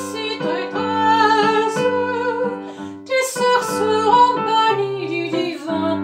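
Song for female voice and piano: sustained piano chords under long, wavering sung notes.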